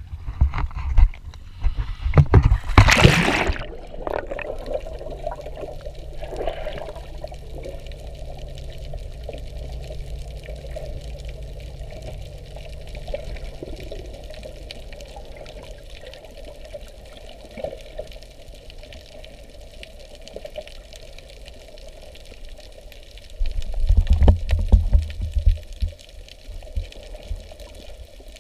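Underwater camera plunged into the sea: a loud splash about three seconds in as it goes under, then muffled underwater sound with a steady low hum, and a louder low rushing of water near the end.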